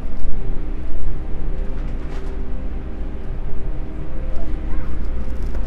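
Steady low rumble of a shopping cart's wheels rolling over a store floor, with a few faint clicks and rattles.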